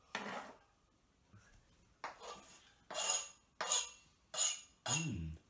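A kitchen knife scraping and tapping chopped herbs off a plastic chopping board into a frying pan, in about six short strokes.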